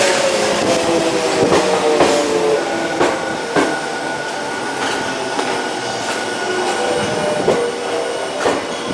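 Tokyo Metro 05 series subway train running, heard from on board: the traction motor whine falls slowly in pitch over the first few seconds, then a steady high tone holds while the wheels click irregularly over rail joints.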